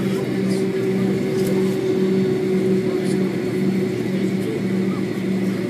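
Boeing 767 jet engines heard from inside the passenger cabin: a steady hum and rushing noise, with a lower tone that throbs about twice a second.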